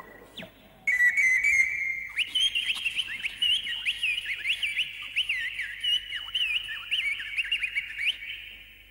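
Pan flute (Romanian nai) playing alone in a high register. About a second in it holds a note, then breaks into rapid ornamented runs and trills with quick pitch bends, getting softer near the end.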